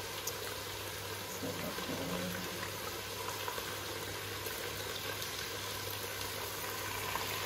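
Steady faint sizzling from a pot of beef, potatoes and spices frying on the stove, with a plastic spatula scooping meat out of a bowl of broth.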